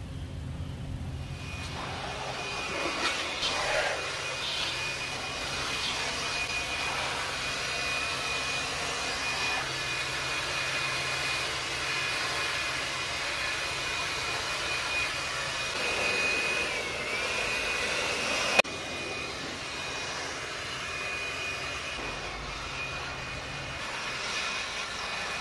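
Handheld electric air blower running, a steady rush of air with a high motor whine, blowing water out of a van's panel gaps and seams. It starts up about a second and a half in, and there is a sharp click about two-thirds of the way through, after which it runs on a little quieter.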